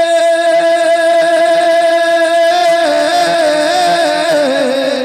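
A man's voice singing a devotional verse into a microphone, holding one long high note, then breaking into wavering ornaments that slide downward near the end.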